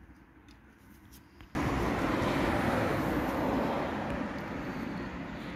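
A passing road vehicle: a loud, even rushing noise that starts suddenly about a second and a half in and slowly fades away.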